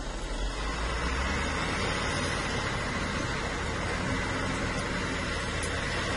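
Wheel loader's diesel engine running steadily as the machine drives away.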